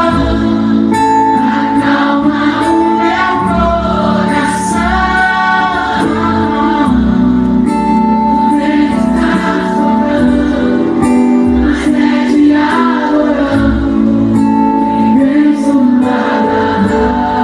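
Live gospel song: a male singer sings over strummed acoustic guitar and held keyboard chords, amplified through the stage sound system.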